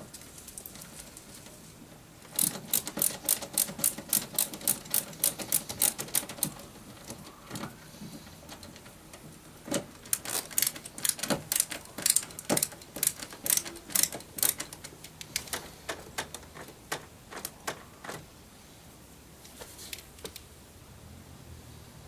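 Screwdriver driving the Phillips screws of a door panel: two runs of rapid, regular clicking, about four or five clicks a second, the first starting a couple of seconds in and the second after a short pause.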